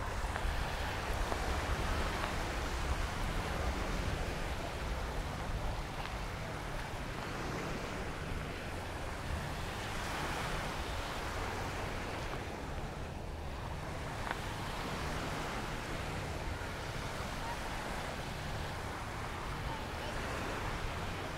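Surf washing up on a sandy beach, swelling and easing every several seconds, with wind rumbling on the microphone.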